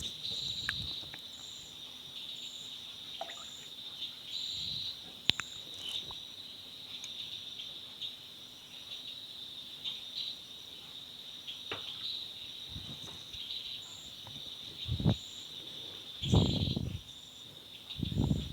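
Insects trilling steadily in one high, even tone that swells now and then, with a fainter pulsing chirp above it; a few short low knocks come near the end.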